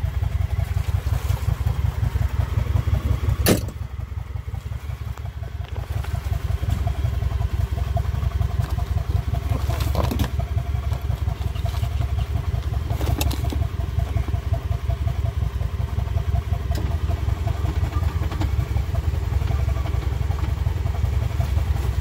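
Utility side-by-side (UTV) engine running steadily with a low, pulsing drone while the vehicle sits stuck in deep mud, with a few sharp knocks; it briefly drops in level after the first knock, about three and a half seconds in.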